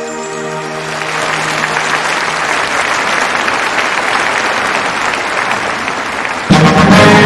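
A large concert audience applauding as the last held chord dies away. About six and a half seconds in, the symphony orchestra comes in loudly and suddenly with the next piece.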